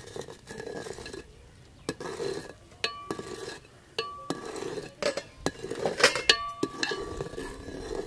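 Long-handled metal spoon stirring bread and hot milk in a metal cooking pot: wet swishing broken by irregular knocks and scrapes of the spoon against the pot, each clink ringing briefly.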